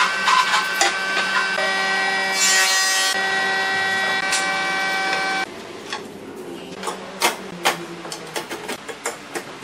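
A steady mechanical hum mixed with scraping and clicks, which cuts off abruptly about five seconds in. After that, quieter scattered clicks and light taps of thin steel reinforcing rods being laid and arranged in a grid.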